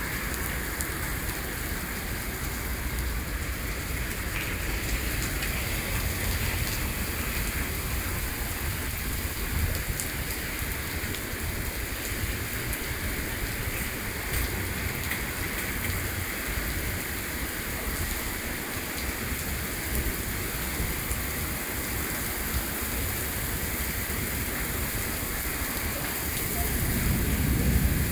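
Heavy rain falling steadily, an even hiss with scattered sharper drop hits. A low rumble swells briefly near the end.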